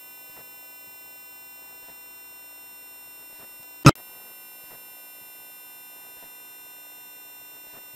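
A 21,000 Hz sine test tone, above the hearing of most adults, played through the left channel and then the right. Under it runs a faint steady buzz of many thin tones, and a sharp click sounds about four seconds in where the tone switches from left to right.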